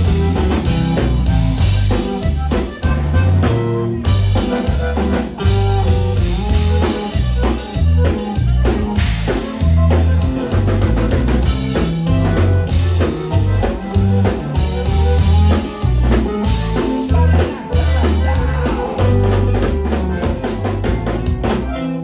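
Live Tejano conjunto band playing, with a drum kit and a bass line keeping a steady dance beat and guitar on top.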